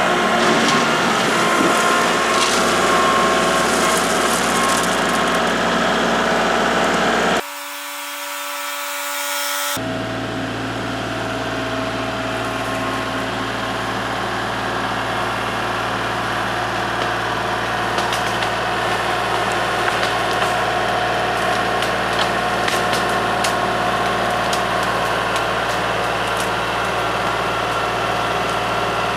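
Kubota L3301 tractor's three-cylinder diesel engine running steadily. The sound changes abruptly about seven seconds in, then the engine runs on with scattered sharp clicks and knocks.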